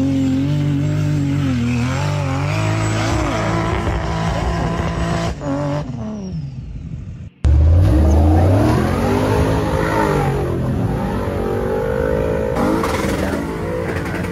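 A Nissan Patrol's engine revs hard as the 4x4 climbs a sand dune, its pitch rising and falling with the throttle. About seven seconds in, the sound cuts off for a moment, then another 4x4's engine revs louder as it works through deep mud.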